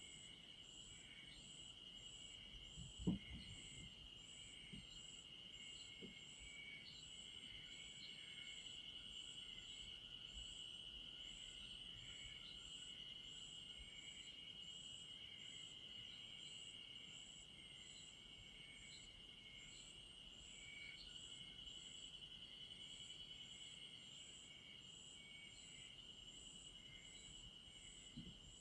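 Insects calling faintly: a steady high trill under regular, evenly spaced chirps and a few irregular lower chirps. A soft low knock about three seconds in.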